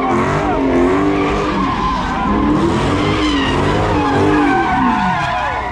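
A car at a street takeover with its engine revs rising and falling over and over while its tyres squeal and skid, as in donuts or a burnout.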